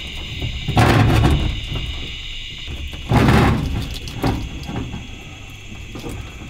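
Electrical cable being pulled and handled in a solar power-system wiring enclosure: two loud scraping, dragging pulls, about a second in and about three seconds in, then a smaller knock. A steady high whine runs underneath.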